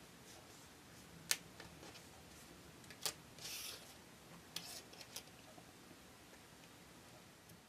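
Faint handling of small cardstock pieces on a plastic cutting mat: two sharp taps, a brief sliding rustle after the second, then a few lighter clicks.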